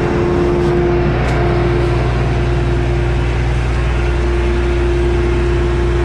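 John Deere S660 combine running at full throttle with its separator engaged: a steady drone with one steady tone held over it.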